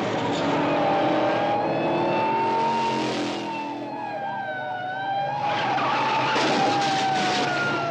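Car sound effect: tyres squealing in a long skid, one squeal tone that wavers and slides slowly down toward the end, over rushing road and engine noise.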